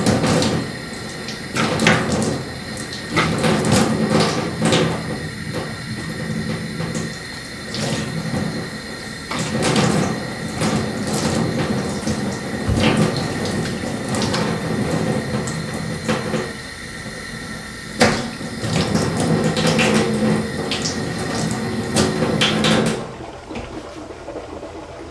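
Water running from a bathroom tap into a stainless-steel sink, broken by repeated splashes as hands scoop water onto a face. The water stops suddenly near the end.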